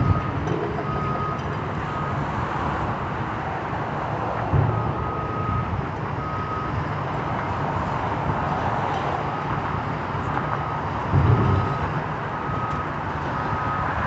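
Heavy machinery working, its backup alarm beeping over and over at one high pitch, with three short low thuds, at the start, about five seconds in and about eleven seconds in.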